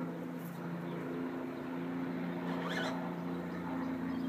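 Electric motor and gearbox of a children's battery-powered ride-on vehicle whirring steadily as it drives on grass.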